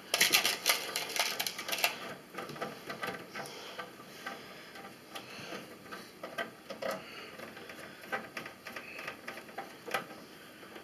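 Small metallic clicks and rattles of screws and a screwdriver working against a computer case while a motherboard is being screwed in. A quick run of clicking in the first two seconds, then scattered ticks.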